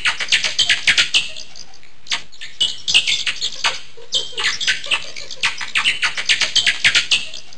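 Bats squeaking and chittering: rapid clusters of short, high squeaks that slide downward in pitch, over a steady background hiss. The squeaks come in bursts, with a quieter stretch about a second and a half in.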